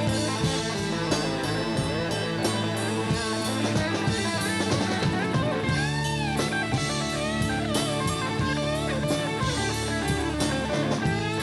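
Live rock band playing an instrumental passage: an electric guitar lead with bent notes over a drum kit. One note bends up and back down about six seconds in.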